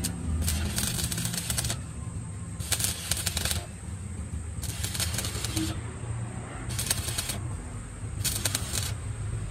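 Arc welding with a stick electrode on a cracked steel truck chassis rail: the arc crackles in five short bursts of about a second each. A steady low hum runs beneath.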